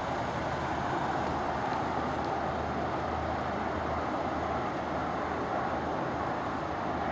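Steady vehicle and traffic noise: a constant low hum under an even rushing sound.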